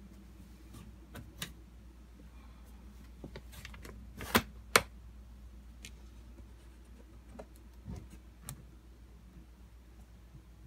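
Metal latches of a tweed hard-shell guitar case being opened: a few small clicks, then two sharp snaps about four and a half seconds in, followed by lighter clicks and knocks as the case comes open.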